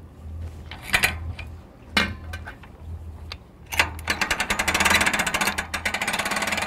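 A few sharp metal clanks from the bow strap hook and winch, then from about four seconds in a hand-crank boat trailer winch clicking fast and evenly, about ten clicks a second, as its handle is turned.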